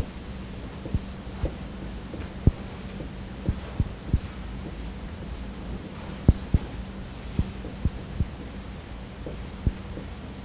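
Dry-erase marker writing on a whiteboard: irregular sharp knocks as the marker tip strikes the board, with short scratchy strokes in between, over a steady hum.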